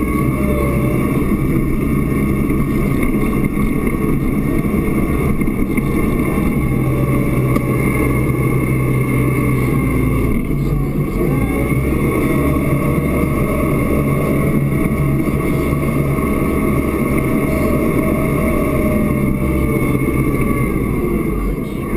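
Massey Ferguson tractor engine running steadily under load while pushing snow with a wide front plow blade, heard from inside the cab. A steady high whine sits over the engine.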